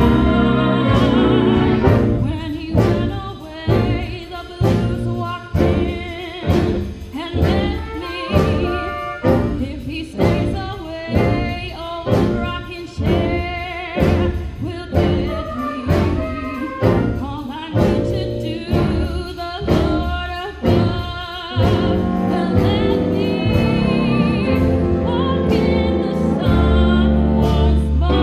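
A female vocalist singing with a jazz band of piano, guitar, upright bass and saxophones. For most of the passage the band plays short accented strokes a little more than once a second under her voice, then shifts to smoother sustained playing near the end.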